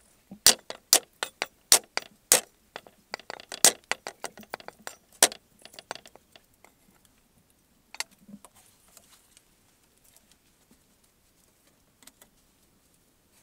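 Cleaver chopping garlic cloves on a round wooden chopping board. A series of sharp knocks, about two a second at first, then a quicker run of lighter chops that stops about five seconds in. A few faint clicks and one more knock follow.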